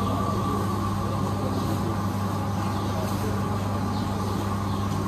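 Steady low hum of a supermarket's refrigeration and ventilation machinery, with a fainter steady whine above it.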